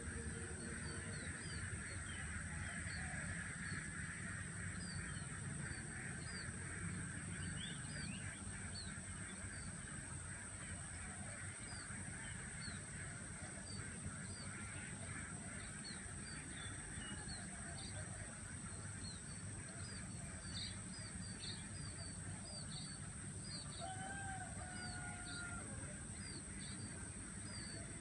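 Quiet outdoor ambience of birds and insects: many short, high chirps repeating over a steady high insect hiss. One louder honking call comes near the end.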